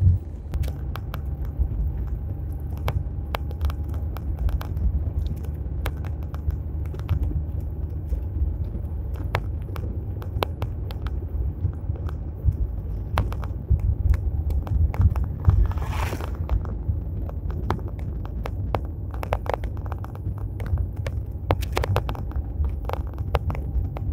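Car driving on an asphalt road, heard from inside the cabin: a steady low rumble of engine and tyres, with frequent small clicks and rattles over it and a brief louder scrape-like burst about two-thirds of the way through.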